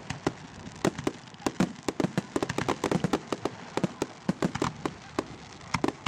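Aerial firework shells going off: an irregular run of sharp bangs and pops, several each second.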